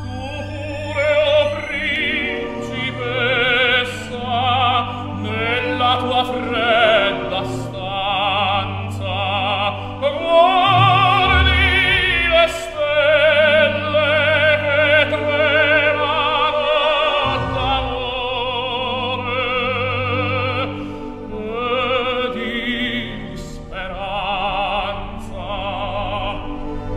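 Background music: an operatic voice singing with vibrato over a sustained orchestral accompaniment.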